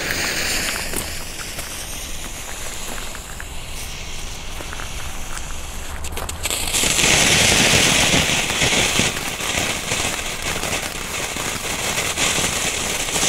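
Red Star Silver Pine ground fountain, a small category F1 firework, hissing as its fuse and first sparks catch. About seven seconds in it comes to full burn, spraying sparks with a louder rushing hiss and many small crackles.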